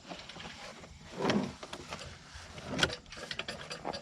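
Bolts and hand tools being handled while fitting a sawmill outrigger: two brief scraping rustles, then a run of light metallic clicks near the end.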